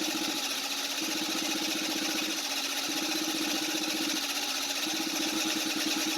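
Electric starter cranking a Kymco 150cc scooter engine, a fast, even churning that does not catch. The engine won't fire yet because the freshly cleaned carburettor's float bowl is still empty and filling with gas.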